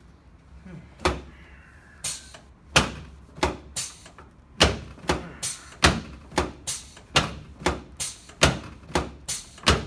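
A series of sharp knocks, starting about a second in and then coming about two a second, each cut off quickly.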